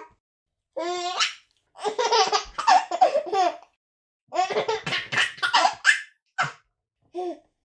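Baby laughing in a string of short bouts of rapid, high-pitched giggling, with complete silences between them and two brief giggles near the end.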